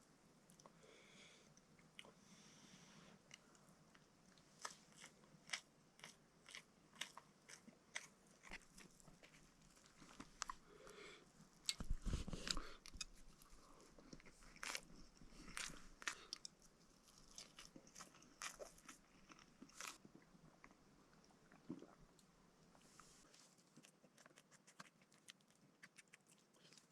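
Faint crunchy biting and chewing: a run of irregular, crisp clicks and crackles, with one louder thump about twelve seconds in.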